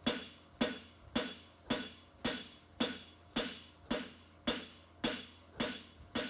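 Hand hammer striking a red-hot steel horseshoe blank held on the anvil's horn, a steady run of ringing blows a little under two a second, as the toe and first branch of a Swiss/French hind shoe are forged.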